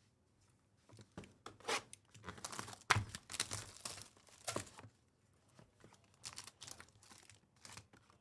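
Shrink wrap being torn off a small trading-card box and the foil card pack crinkling as it is pulled out and handled: a run of irregular rustles and tears, the sharpest about three seconds in.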